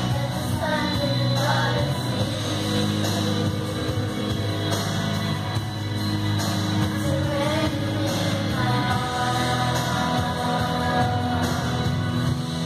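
Children singing a duet, a high melody line over steady instrumental accompaniment.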